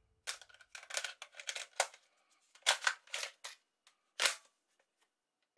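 Short plastic clicks and clatter from a clear plastic toy foam blaster being loaded and worked by hand, a dozen or so separate clicks with a sharper one near the end.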